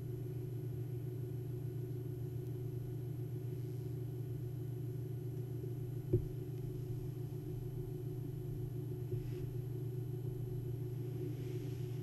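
Steady low electrical hum, with a single brief knock about six seconds in.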